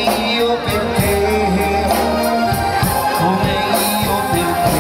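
Live band music with a sung melody, amplified through a stage PA, with a steady beat and cymbals.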